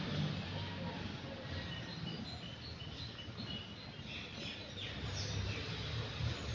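Outdoor background ambience: a steady hiss of noise with small birds chirping, a run of short high chirps in the middle.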